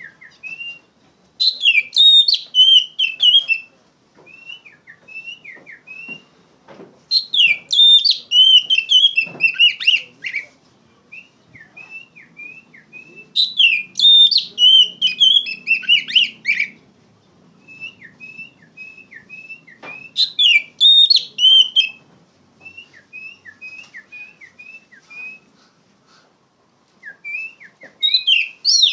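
Oriental magpie-robin (kacer) singing loudly in full song: rich, varied song phrases a few seconds long come about every six seconds, with short repeated rising whistled notes in the gaps between them.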